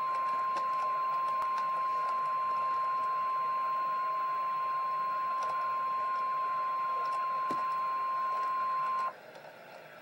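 Weather-alert warning tone, the single steady 1050 Hz alarm tone of NOAA Weather Radio, played through a radio speaker. It is held for about nine seconds and cuts off abruptly near the end. It signals that a warning broadcast follows, here a severe thunderstorm warning.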